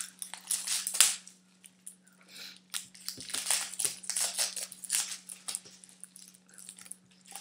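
Clear sticky tape binding the hands being bitten, pulled and torn off, crinkling and crackling in irregular bursts, the sharpest crackle about a second in.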